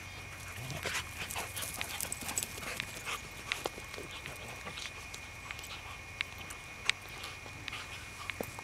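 Two poodles romping and play-wrestling on grass: scattered light ticks and scuffles from their paws and bodies, with some dog breathing.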